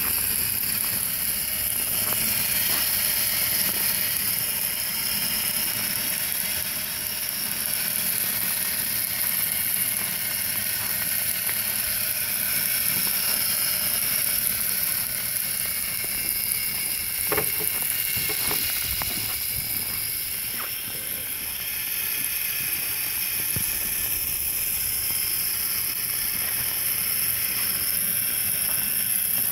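Electric RC crawler truck on 3D-printed snow tracks driving slowly: a steady whine from its motor and gears over the mechanical clatter of the tracks, with a few sharp clicks a little past halfway.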